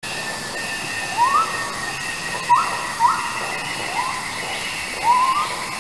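Jungle ambience sound effect: a steady rushing hiss like falling water, with a constant insect-like trill, and short rising calls that come about once a second.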